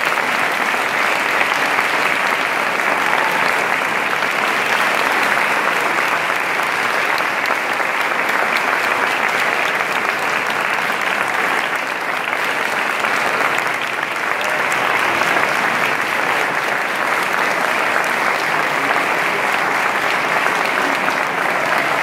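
Audience applauding: steady, sustained clapping from a full room, easing slightly twice around the middle.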